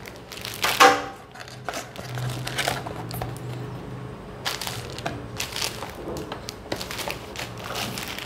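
Cardboard box and plastic wrapping of a makeup brush set being handled and opened: irregular rustling, scraping and crinkling, with a sharp loud rustle about a second in and a busier stretch of rustles in the second half.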